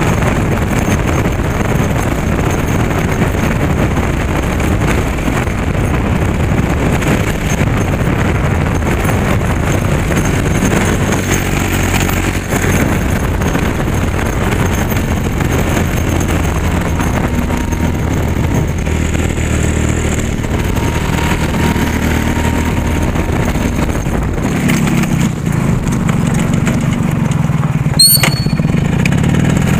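A vehicle engine running on the move, its pitch shifting up and down, under steady road and wind noise from travel along a wet road. A brief sharp click with a short high squeak about two seconds from the end.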